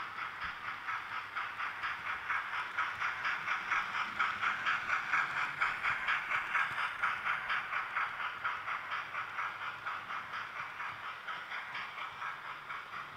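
Hornby TTS sound decoder in a model LNER A3 'Flying Scotsman' playing steady steam-locomotive chuffing through its small onboard speaker, about four chuffs a second. It grows louder toward the middle and eases off near the end.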